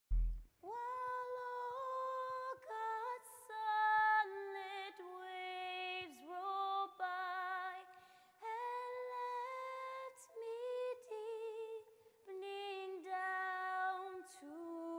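A woman singing a slow, unaccompanied melody in a high voice, with held, wavering notes broken by short pauses for breath. A brief low thud sounds right at the start.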